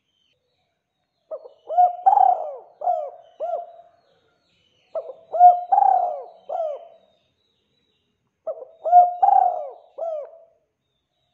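Spotted dove (tekukur) cooing: three phrases of several short, low coos each, starting about a second in, near the middle and near the end, with silence between them.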